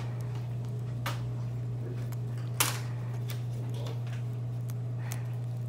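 A few short sharp clicks and scrapes as a wooden-handled blade pries and cracks at the bone of a fish's head to reach the otoliths, the loudest about two and a half seconds in, over a steady low hum.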